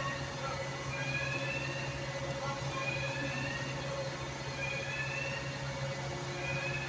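Steady hum of a bus idling in a large garage, with a short rising whine that repeats about every second and a half to two seconds.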